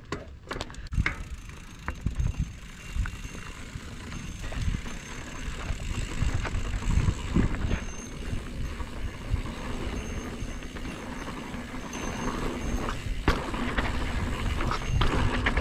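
Mountain bike rolling fast down a dirt singletrack: tyre noise and wind on the handlebar camera's microphone, with the bike's chain and frame rattling and clicking over bumps and a sharp knock about thirteen seconds in.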